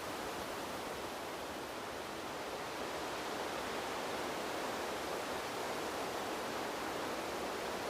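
Steady wind: an even, smooth rush with no distinct gusts or other sounds, swelling slightly about three seconds in.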